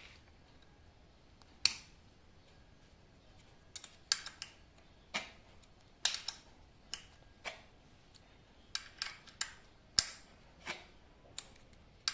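Irregular sharp metallic clicks and taps, some in quick runs, from an Allen key and metal handlebar-stem parts being worked and handled while the stem bolts of an electric bicycle are tightened.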